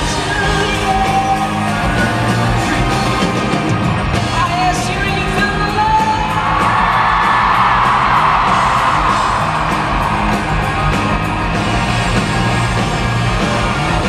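Live band playing loudly: a man singing over electric guitar, bass and drums, with a long held note about halfway through.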